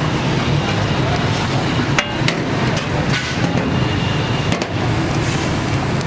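A few sharp knocks and clicks, the clearest about two seconds in, over the steady din of a busy street-food kitchen.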